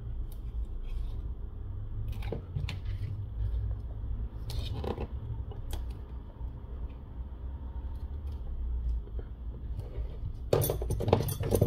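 Light clicks and taps of a plastic phone back cover being handled and pressed while thin double-sided tape is fitted along its edge, over a low steady rumble, with a quick cluster of louder clicks near the end.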